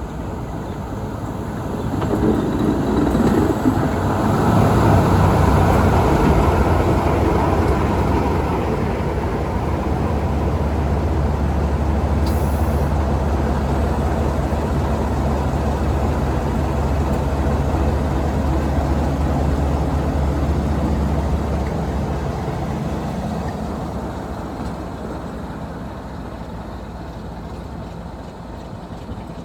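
Class 33 diesel locomotive's Sulzer engine running with a steady low throb as the locomotive runs round its train. It grows louder from about two seconds in and fades away over the last several seconds.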